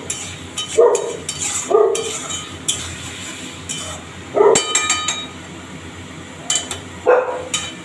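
A flat metal spatula stirring and scraping masala and potato pieces in a metal kadai, with a ringing clink against the pan about halfway through. A dog gives a few short barks in the background.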